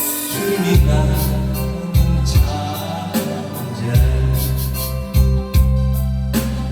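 Instrumental backing music with a steady drum beat and sustained bass notes, playing between sung lines of a song.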